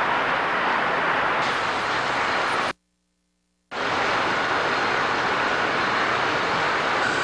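O scale model freight train running on the layout's track, a steady rolling noise. It breaks off for about a second of silence just under three seconds in, then carries on the same.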